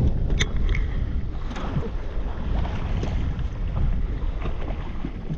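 Wind rumbling on the microphone over the sound of a boat on the water, with a few light knocks about half a second in.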